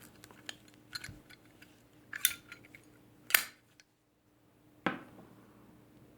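Metal Zippo lighters being handled, giving a few sharp metallic clicks and clinks, the loudest a little over three seconds in.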